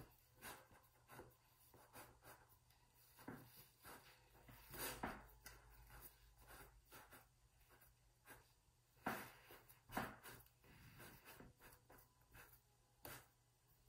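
Faint soft rubbing and pressing of fingers on shortcrust pastry dough as it is worked into the sides of a tart tin, with a few slightly louder brushes about five seconds in and again around nine and ten seconds in.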